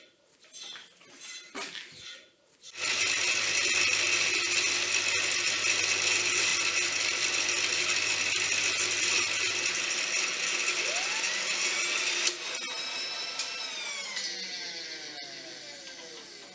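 A few light metal clinks, then an electric power tool starts and runs at steady speed with a high whine for about nine seconds. It is switched off and winds down, its whine falling in pitch.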